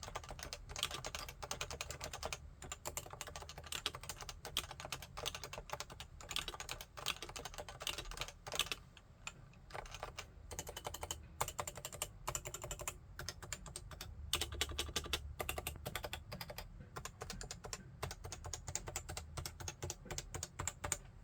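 Continuous fast typing on a Realforce 87U keyboard with 55 g Topre electro-capacitive switches: a dense run of soft keystrokes with a few brief pauses.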